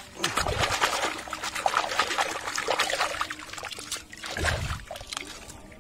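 Water pouring and splashing, with many irregular clicks and knocks from plastic toys being washed, and a low thump about half a second in and again about four and a half seconds in.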